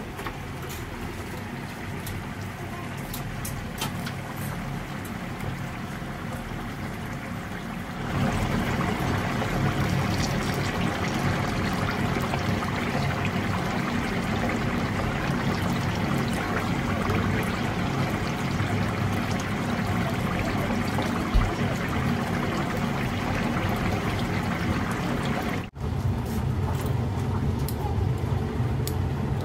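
Chicken deep-frying in bubbling oil: a steady sizzle that gets louder about eight seconds in, over a steady low hum.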